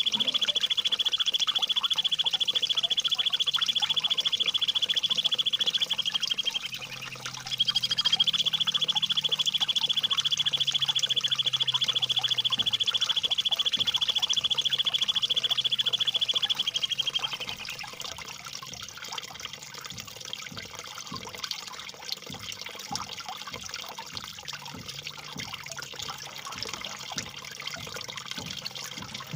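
A bird's rapid rolling trill held on one high pitch, dropping in pitch as it ends about six seconds in, then resuming after a short break for about ten seconds more. Trickling water runs beneath it and is all that remains for the last third.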